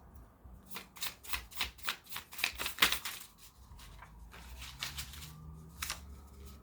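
Tarot cards being shuffled by hand: a quick run of about a dozen crisp card slaps in the first half, then a few more scattered ones near the end.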